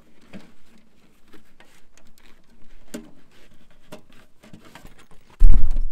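Titanium tent stove being slid out of a fabric carry bag: faint rustling of the fabric with light scrapes and clicks, then one sudden heavy thump near the end.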